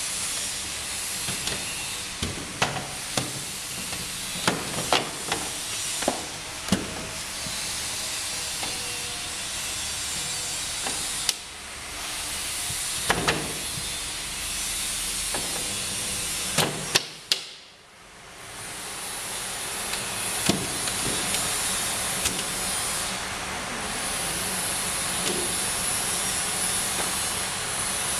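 Irregular hollow knocks and clacks of bamboo seat slats and frame pieces being handled and fitted, over a steady hiss.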